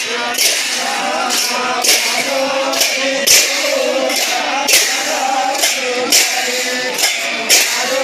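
Many pairs of large brass hand cymbals clashed together in a steady rhythm, with a heavier crash about every one and a half seconds and lighter strokes between, over men's voices singing.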